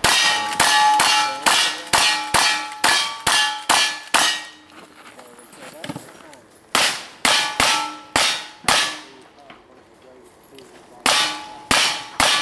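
Rapid gunfire from a cowboy action shooter, each shot followed by the ring of a struck steel target. About ten shots come quickly at first, then a pause, a string of about five, another pause, and a further quick string near the end.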